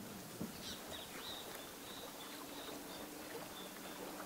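Faint outdoor ambience: a thin, high chirping animal call in short repeated notes over a low steady hum.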